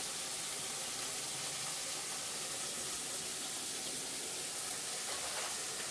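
Vegetables frying in oil in an aluminium kadhai over a gas flame: a steady, even sizzle.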